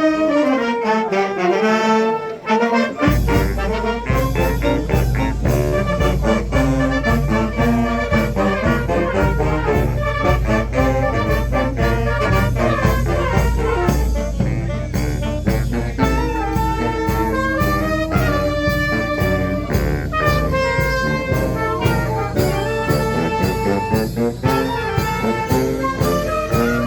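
Brass band (fanfarra) playing a lively tune: brass melody at first, with drums and a steady beat coming in about three seconds in.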